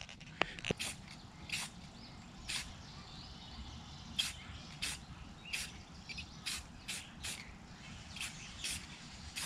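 Rust-Oleum crystal clear enamel aerosol can spraying clear coat onto a fishing reel in a dozen or so short hissing bursts, each under half a second, with irregular gaps between them.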